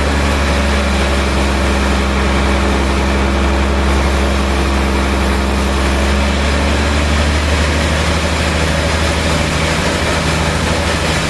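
Sawmill machinery running steadily, a loud low hum with steady engine-like tones. One higher tone drops out about six seconds in.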